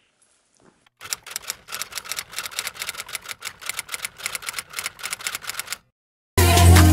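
Typewriter sound effect: rapid keystroke clicks, about eight a second, starting about a second in and stopping shortly before loud music comes in near the end.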